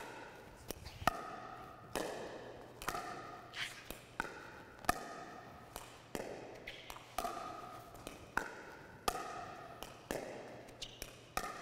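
A pickleball dink rally: sharp pops of paddles striking the plastic ball and softer taps of it bouncing on the court, roughly one loud hit a second. Each hit rings on briefly in the echoing indoor hall.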